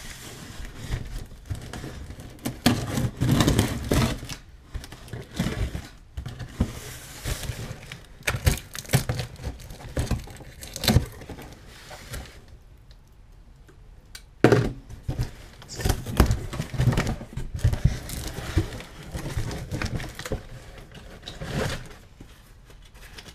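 A cardboard shipping box being opened by hand: a blade cutting through the packing tape, then cardboard flaps scraping, rustling and crinkling as they are pulled open, with a few sharp knocks against the box.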